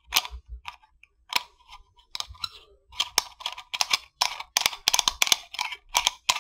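Metal thumb screw being threaded back into the printer's fine-tuning mount: a few scattered metallic clicks, then a quick run of clicks at about four a second from about three seconds in.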